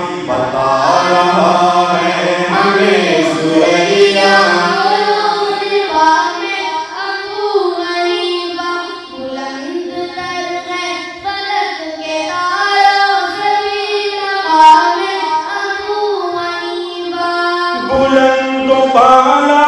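Devotional Urdu singing: sung voices layered over one another in a chant-like melody, with no clear drumbeat. A low held tone underneath for about the first two seconds drops out and comes back near the end.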